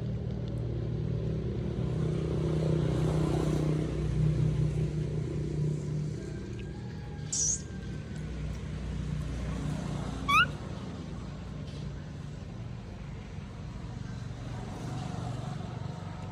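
A motor running steadily with a low hum, a little louder in the first few seconds. A short, quick rising chirp cuts in about ten seconds in.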